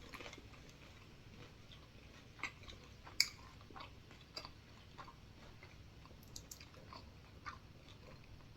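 Close-up chewing of a mouthful of food: soft mouth clicks and smacks every second or so, with a sharper click about three seconds in.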